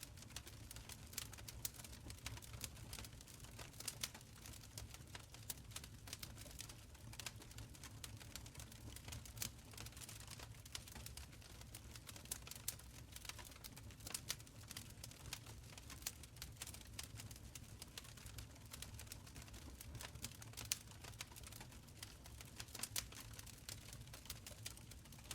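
Wood fire crackling in a stone fireplace: an irregular scatter of small sharp snaps and pops over a low, steady rumble.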